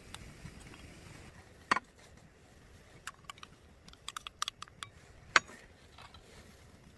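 Scattered sharp clicks and knocks over a quiet background: one click about two seconds in, a quick run of light clicks a little later, and a louder sharp knock near the end.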